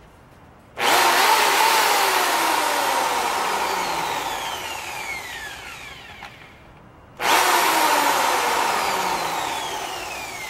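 Ryobi D620H corded hammer drill run twice with the bit free in the air, each run starting suddenly at full speed and then winding down slowly in pitch and loudness. It gives a plain motor whine with no hammering rattle, which the owner takes as a sign that the hammer action isn't working.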